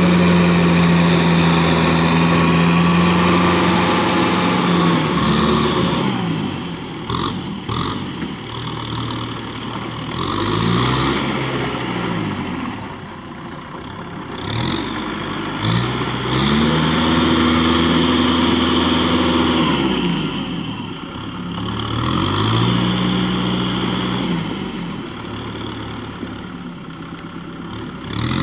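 Kubota M6040 tractor's four-cylinder diesel engine running while working a rice paddy. Its speed repeatedly drops and picks up again: a steady high pitch, a fall about five seconds in, then several more falls and rises.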